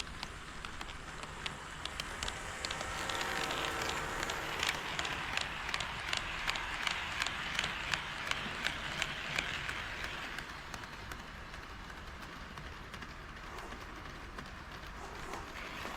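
HO-scale KATO D51 model steam locomotive and train running along sectional track, its wheels rumbling and clicking over the rail joints about twice a second. It grows louder as the train passes close, then fades away.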